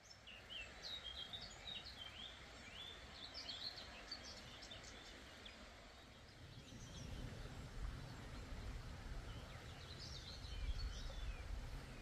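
Small birds chirping and twittering in quick clusters, thickest in the first few seconds and again near the end, over a steady background hiss. A low rumble builds from about halfway.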